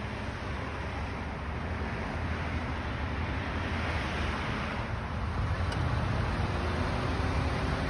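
Steady low rumble and hiss of vehicle road noise, swelling briefly about four seconds in.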